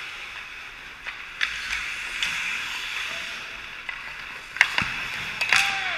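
Hockey skates scraping and carving on rink ice in a steady hiss, with a few sharp clacks of sticks and puck, the loudest about a second before the end.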